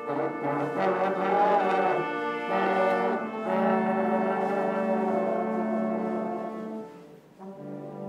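A live brass band playing, a trombone out front holding long notes that change every second or two; a short lull near the end before the next phrase comes in.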